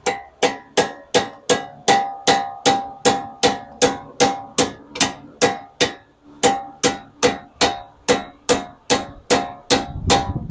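Hammer blows driving a new wheel stud into a Honda's front wheel hub, struck steadily about two and a half times a second, each blow with a short metallic ring. There is a brief break about six seconds in before the hammering resumes.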